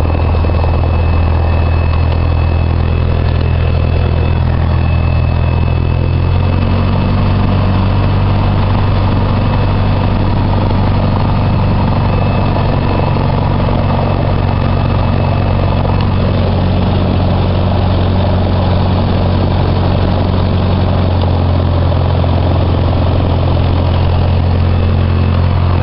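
Cessna 152's four-cylinder Lycoming engine and propeller droning steadily, heard from inside the cabin. Its note shifts about six or seven seconds in and then holds steady.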